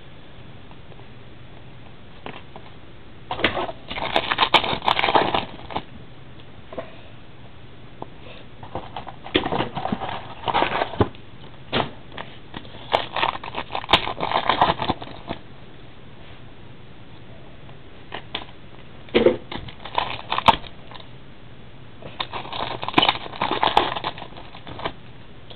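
Trading cards and their packaging being handled, in five short bouts of crackly rustling and clicking, each a second or two long.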